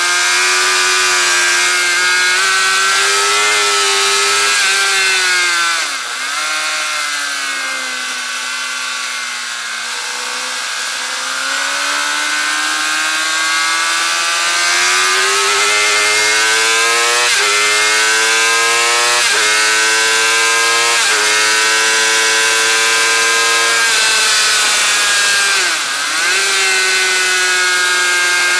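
2008 Suzuki GSX-R750's inline-four engine revving hard, with wind rush over the microphone. The revs drop suddenly about six seconds in and sink low, pull back up slowly, then the bike shifts up three times in quick succession around the middle; revs dip briefly once more near the end.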